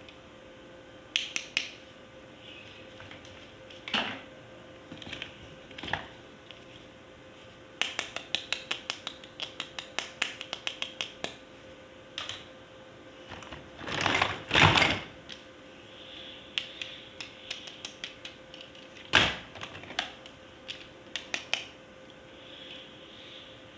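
Hard plastic toy parts being handled, clicking and tapping, with a fast run of about five clicks a second in the middle and two louder rattling bursts later on.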